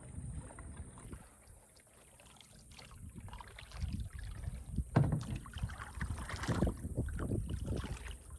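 Kayak paddle splashing through the water in irregular strokes, building up a few seconds in, with the loudest splash about five seconds in.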